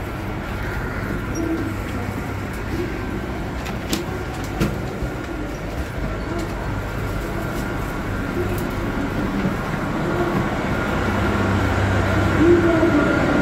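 Interior noise of a KiHa 261 series diesel railcar at a station platform: a steady low rumble, with a few sharp clicks about four seconds in, growing a little louder near the end.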